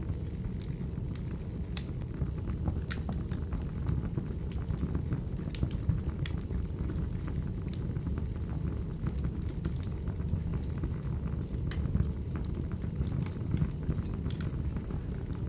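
Crackling wood fire: a steady low rumble of burning logs with irregular sharp crackles and pops scattered throughout.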